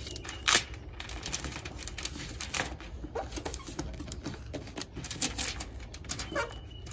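Stretchy window flashing tape being pulled out and pressed down by hand around a window sill corner, giving a run of irregular small crackles and clicks, with one sharper click about half a second in.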